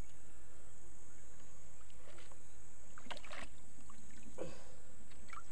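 A fish caught in a gill net splashing weakly at the surface as the net is hauled up against a wooden boat's side, with a few soft splashes and net rustles over a steady low rumble.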